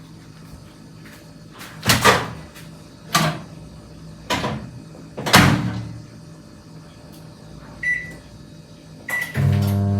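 Four knocks and clunks of kitchen doors and handling, then two short keypad beeps, and a microwave oven starts running with a steady hum near the end, heating popcorn.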